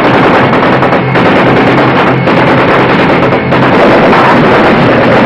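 Patrol Boat, River (PBR) running fast: a loud, steady rush of engine and water, with a film music score under it.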